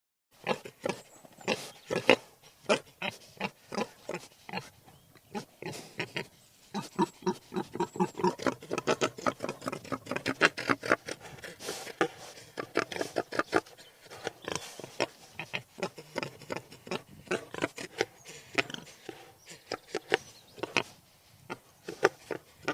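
Wild boar grunting: many short grunts in quick, irregular succession.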